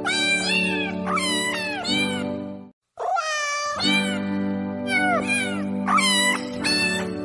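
An end-screen music track built from cat meows: high meows rising and falling about once a second over a steady held chord, repeating like a loop. The sound cuts out briefly a little before the middle.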